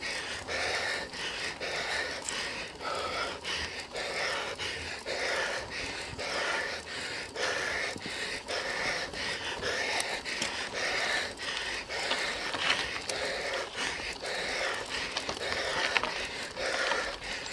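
A cyclist panting hard, about one breath a second, catching his breath after a steep uphill ride.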